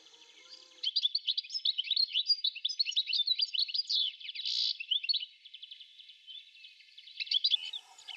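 A dense chorus of small birds chirping and twittering: many quick, high, sliding calls overlapping without pause. Faint background music sounds in the first second and returns near the end.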